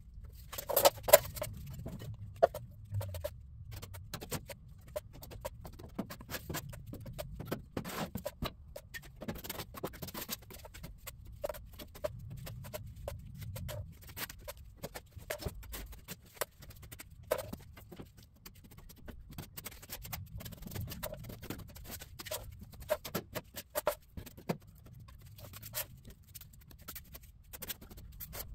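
Irregular light taps, clicks and scrapes of hand work, over a low rumble.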